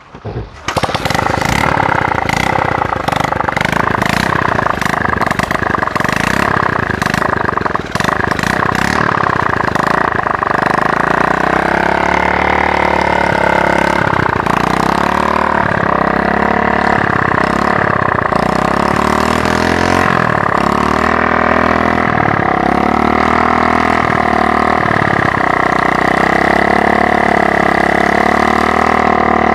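A motorcycle engine on a homemade pump rig is kick-started and catches within the first second, then runs steadily while turning a belt-driven water pressure pump. From about twelve seconds in, the low end of the sound takes on a regular pulsing.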